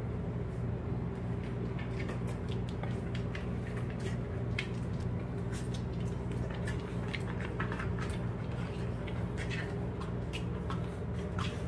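Scattered light clicks and taps of a puppy's and small dogs' claws on a hard wood-look floor as they walk about, over a steady low hum.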